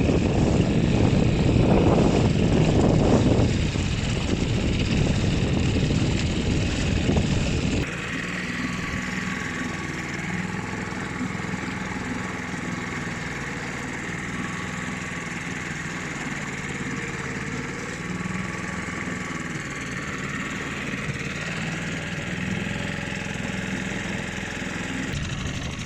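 Small outboard motor running as the dinghy gets under way, loud and rough for the first several seconds, then dropping to a quieter, steady running tone about eight seconds in.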